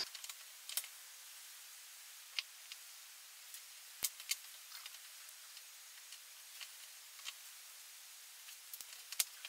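Faint, scattered clicks and handling sounds of heavy-gauge battery cable being measured and snipped with hand cable cutters, over a low hiss. The sharpest click comes near the end.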